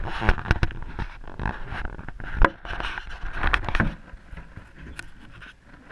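Close-up handling noise on a GoPro as a hamster nudges and paws at it: irregular taps, clicks and scrapes against the camera housing, mixed with the rustle of wood-shaving bedding. The sharpest knock comes about two and a half seconds in, and the noise dies down near the end.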